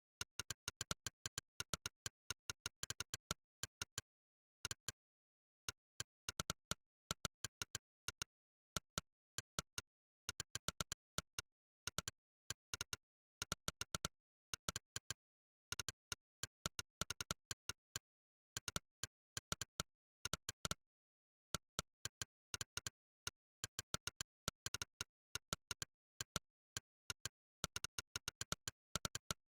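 Monkeytype's 'click' keypress sound effect, one short sharp click for each keystroke during fast typing. The clicks come in quick clusters of several a second, separated by short pauses, with dead silence between clicks.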